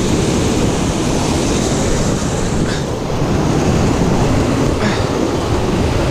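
Whitewater cascade rushing steadily, a loud even noise of falling and churning water.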